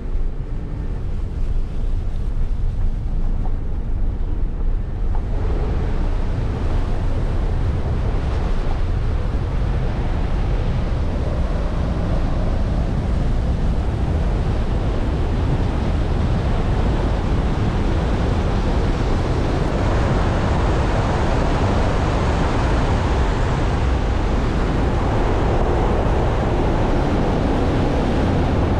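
Steady rush of wind and tyre noise from a car driving on a wet road, with heavy low rumble on the microphone. It grows fuller and louder about five seconds in as the car picks up speed.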